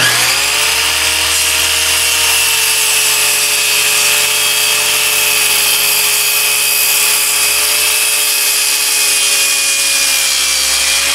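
PRIMERO electric circular saw switched on and crosscutting a length of softwood, a loud steady motor-and-blade whine with a strong high ring. It is noisy ("やかましい"), which the woodworker puts down to either the blade or the motor.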